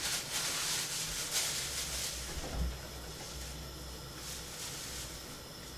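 Steady hiss of a gas burner under a pot of boiling eggs, with a couple of soft knocks as bagged food is put into a fridge.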